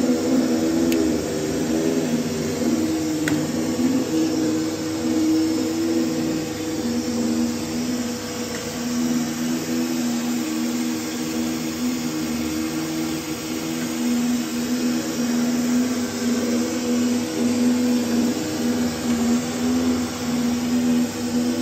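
Foliant Gemini Compressor 400A laminating machine running, a steady motor hum with a few held low tones over an even hiss.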